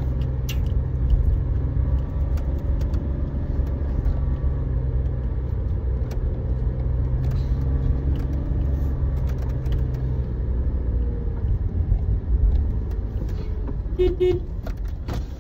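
Car driving along a narrow paved lane, heard from inside the cabin: a steady low rumble of engine and tyres that eases off about ten seconds in, with a few light clicks.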